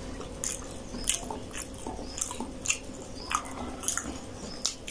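Close-up mouth sounds of people chewing steamed momos: a string of short, irregular clicks and smacks.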